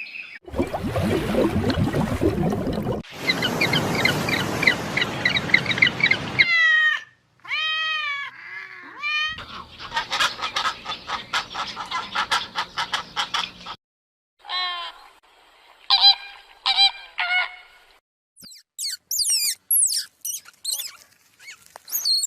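A run of short clips of different bird calls, cut one after another with abrupt changes between them: pitched calls and fast repeated calls in the middle, and high, quick chirps near the end.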